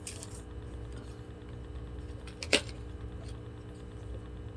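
Small plastic handling noises from a digital pH meter and its packaging, with one sharp click about two and a half seconds in, over a steady low hum.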